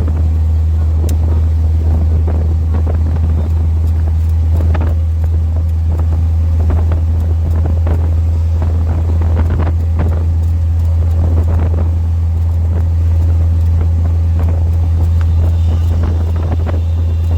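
Steady low rumble of a moving road vehicle, with wind noise on the microphone and a few light knocks and rattles.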